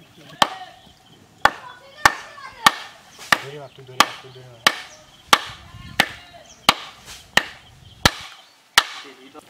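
A wooden mallet pounding the top of a bamboo stake to drive it into the mud. There are about thirteen sharp, ringing blows at a steady pace of roughly three every two seconds.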